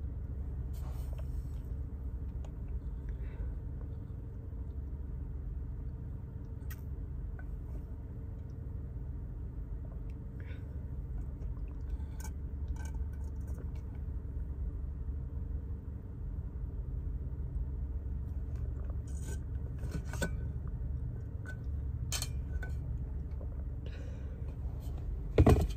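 Steady low hum inside a car cabin, with scattered light clicks and clinks from a plastic tumbler's lid and straw being handled and sipped from. A louder knock comes near the end.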